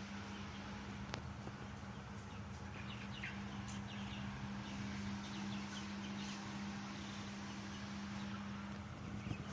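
A flock of young chickens peeping and clucking faintly, with short calls clustered in the middle, over a steady low hum.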